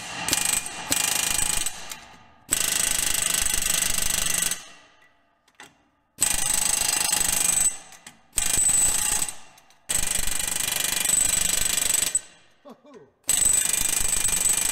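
Astro Pneumatic 4980 pneumatic air hammer hammering on a heavy truck's wheel studs in about six runs of one to two seconds each, with short pauses between.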